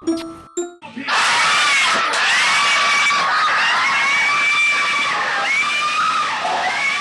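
Several men screaming together in excitement, long high-pitched screams over a loud din of voices. The screaming starts about a second in, after two short chime notes.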